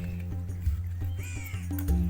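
Background music with a steady low bass line; a crow caws once about a second in.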